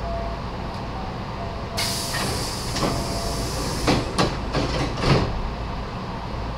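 Nose Electric Railway 7200 series electric train heard from on board, with a steady low running hum. About two seconds in a burst of hissing starts, and it gives way to a quick run of about five knocks a few tenths of a second apart, the last the loudest.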